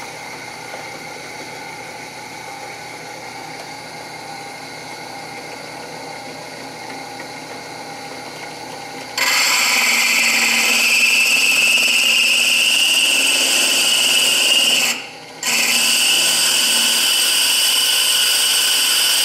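Craftsman half-horsepower drill press running at low speed. About nine seconds in, its diamond hole-saw bit bites into a ceramic plate, cutting wet, and the sound jumps to a loud, steady, high grinding whine. The grinding breaks off for about half a second near the end, then resumes.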